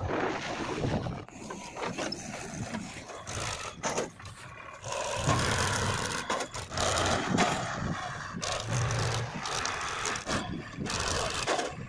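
Diesel engines of a JCB 3DX backhoe loader and a Powertrac 434 DS tractor running, in short segments that change abruptly from one to the next.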